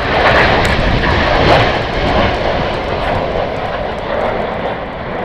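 BAE Systems Hawk T1 jets, each with a single Adour turbofan, passing overhead in formation: a loud, steady jet roar that slowly fades over the last few seconds.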